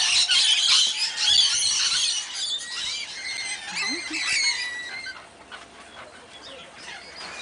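A flock of parrots, lorikeets among them, screeching and chattering over one another in an aviary. The calls are dense and loud for the first two to three seconds, then thin out to scattered calls.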